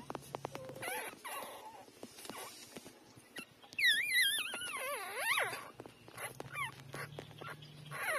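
Newborn puppies whimpering and squealing while they nurse. The loudest is a wavering cry that falls in pitch, lasting about a second and a half from about four seconds in. Shorter squeaks and short clicks come before and after it.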